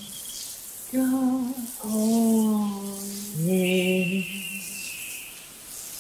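Women's voices singing long, held wordless notes in a slow, gentle vocal line: three sustained notes one after another, the last a step lower. A thin high tone sounds over the third note and runs on into the second half.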